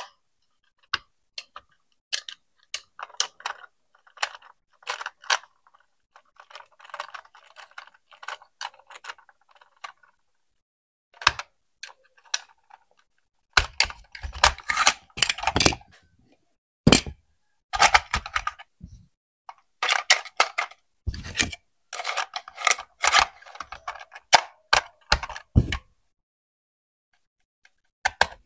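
Handling noises from unboxing a toy RC car: scattered plastic clicks and taps, a stretch of packaging rustle, then louder knocks and clatter as the parts are handled.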